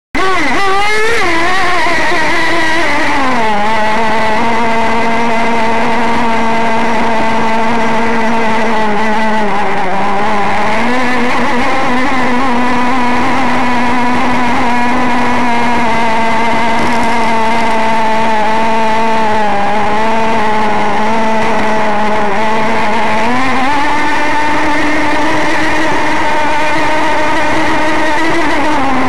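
O.S. 21 RXM nitro glow two-stroke marine engine of an RC model power boat running flat out, heard from on board the boat: a loud, steady high-pitched drone. Its pitch wavers for the first few seconds, then settles, dips a little twice, and rises for several seconds near the end.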